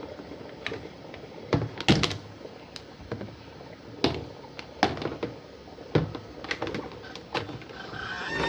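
A series of irregular knocks and thuds, a dozen or so at uneven intervals, the loudest about two seconds in.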